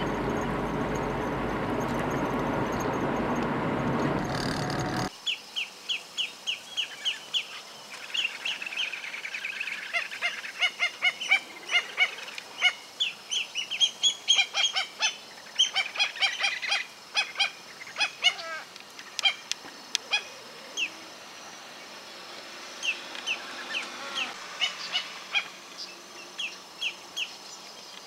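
A flock of waterbirds calling, from about five seconds in: many short, high calls in quick runs, with some lower calls mixed in. Before the calls there is a steady rushing noise that cuts off suddenly.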